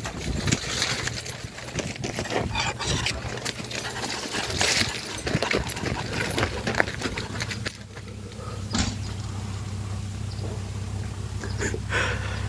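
Footsteps and rustling over dry leaves and dirt, with many short clicks and scuffs, for most of the first eight seconds. Then a steady low mechanical hum, like an idling motor, sets in and holds.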